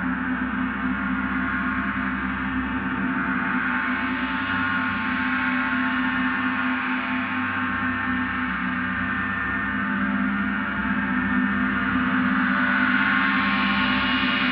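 A gong sounding in a continuous wash of many overlapping sustained tones, with no separate strikes, swelling slightly about twelve seconds in.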